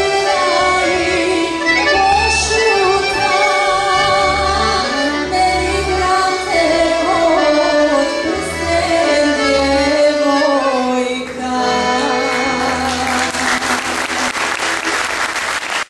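A woman sings a sevdalinka with a wavering vibrato, accompanied by accordions, until the song ends about eleven seconds in. Applause follows in the last few seconds.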